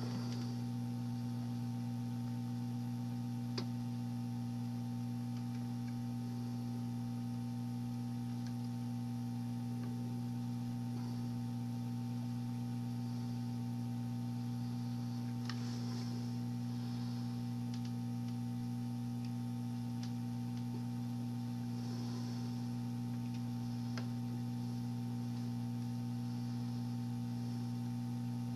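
Steady low electrical mains hum from bench equipment, with a few faint light clicks.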